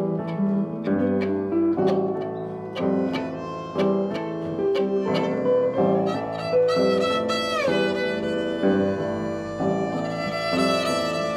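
Instrumental tango-based quartet music: violin lines over struck piano chords, with electric guitar in the ensemble. About two-thirds of the way through, a held line slides down in pitch.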